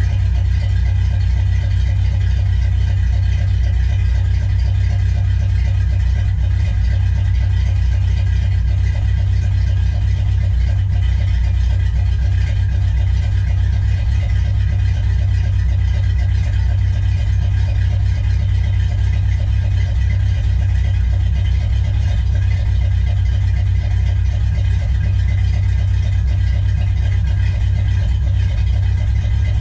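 1964 Pontiac GTO's 389 V8 idling steadily while it warms up after a cold start, its sound deep and even, with no revs.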